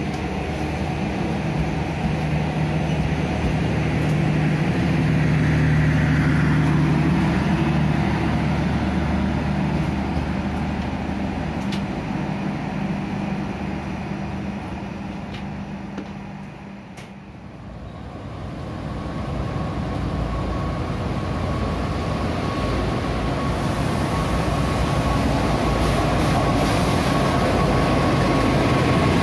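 A passenger train pulling out, its coaches rumbling past and fading away. A CC206 diesel-electric locomotive then approaches, its sound building with a steady high whine, as it runs in alongside the platform.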